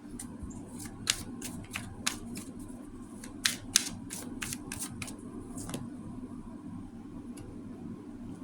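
Tarot cards being handled and pulled from the deck: a run of about a dozen sharp clicks and snaps over the first six seconds, over a steady low hum.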